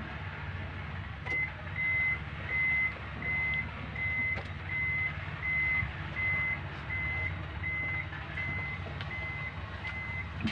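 Hino truck's dashboard warning buzzer beeping at a steady pace, about three short high beeps every two seconds, starting about a second in when the ignition key is switched on with the engine off.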